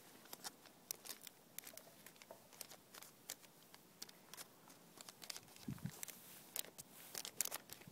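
A plastic packet of Tannerite catalyst powder crinkling and ticking in the fingers as it is squeezed and tapped to empty it into the jar. The crinkles come as an irregular run of small sharp clicks, thickest near the end, with one soft low bump about six seconds in.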